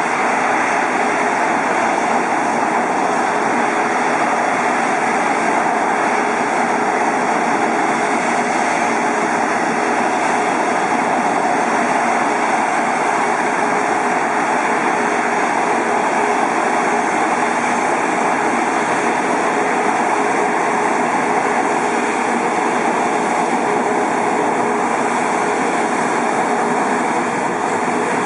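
Airbus A380's four Rolls-Royce Trent 900 turbofan engines running at taxi power: a steady jet rush with a faint constant whine underneath.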